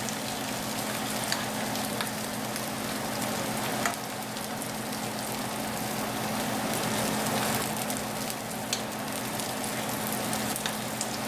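Potato halves sizzling steadily in hot corn oil in a nonstick frying pan, with a few light clicks as a metal spoon turns them. A steady low hum runs underneath.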